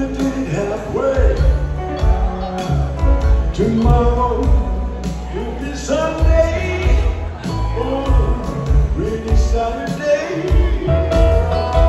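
Live band playing a slow ballad: strummed acoustic guitar, piano, pedal steel guitar and bass, with a gliding melody line over sustained bass notes.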